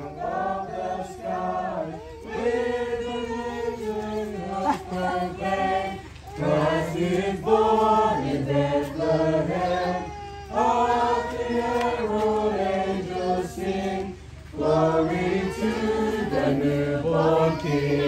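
A group of people singing together in chorus, in phrases a few seconds long, with brief breaths about six, ten and fourteen seconds in.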